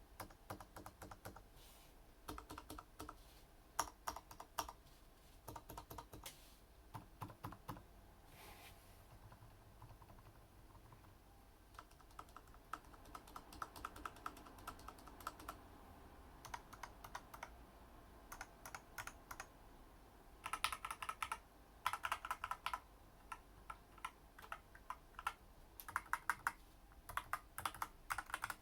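Typing on a Varmilo mechanical keyboard with Daisy switches: irregular runs of soft keystroke clicks with short pauses, and quicker flurries of keystrokes near the end.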